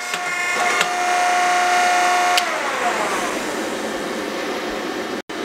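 Hydraulic forging press's electric pump motor whining steadily. About two and a half seconds in it is switched off and spins down, its whine falling in pitch and fading into a hiss.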